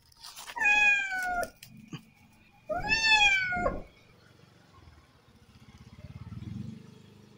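Calico cat caught on a rat glue trap meowing loudly twice, each a drawn-out distress cry that falls in pitch. A low rumble swells and fades in the second half.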